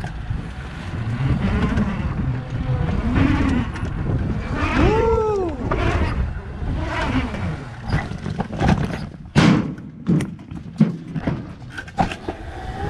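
Electric dirt bike running down a plastic waterslide and out onto gravel, with a steady low rumble throughout. A whine rises and falls once about five seconds in. Sharp knocks follow in the second half as it rolls over rough ground.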